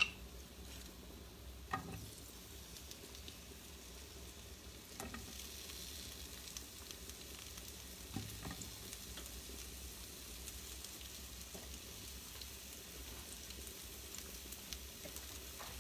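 Sliced artichokes sizzling gently in olive oil and garlic in a pan over low heat, with a few light clicks along the way.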